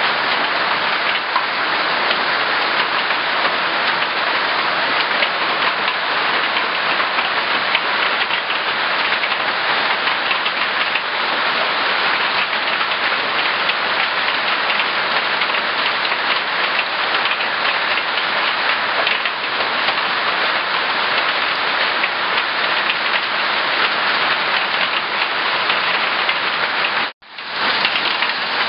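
Hailstorm: hail and heavy rain pelting down steadily, a dense hiss of countless small hits on a corrugated iron verandah roof and the ground. The sound cuts out for an instant near the end.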